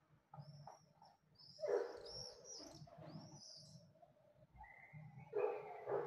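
Swifts screaming overhead: high, thin screeching calls, several in a row near the middle. A dog barks in the distance, once about a second and a half in and again near the end.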